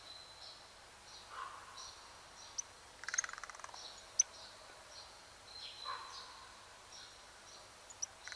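Small songbirds calling: repeated short, high chirps, a lower call twice, and a brief rapid rattle about three seconds in. A single sharp tick comes about a second after the rattle.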